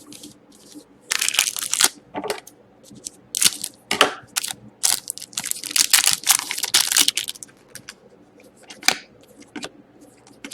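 Crinkling and tearing of a foil trading-card pack wrapper, with cards being handled, in irregular crackly bursts that are densest about a second in and again around the middle.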